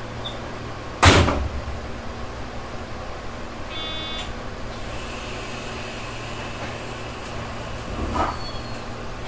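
Interior of a Tobu 6050 series railcar by the cab, with the air conditioning running as a steady hum. About a second in comes a sudden loud hiss that fades within half a second, a short electronic beep follows a few seconds later, and a softer hiss comes near the end.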